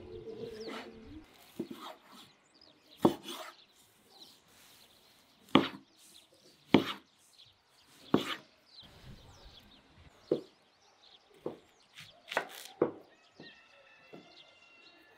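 Cleaver chopping cooked lamb on a wooden board: about eight sharp chops at uneven intervals of one to two seconds.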